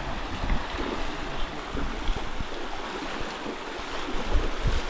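River water rushing steadily, with wind rumbling on the microphone.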